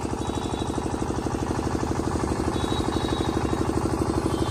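Engine-driven generator running steadily at a constant speed, with an even, rapid chugging pulse.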